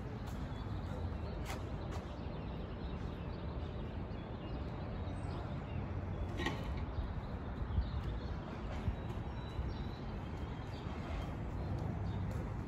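Steady low outdoor rumble, with a few faint sharp clicks about a second and a half in and again around six and a half seconds.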